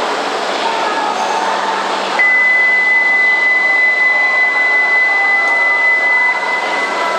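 A single steady high-pitched warning beep starts abruptly about two seconds in and holds for about five seconds while the doors of an E7 series Shinkansen close before departure. Steady station hum runs underneath.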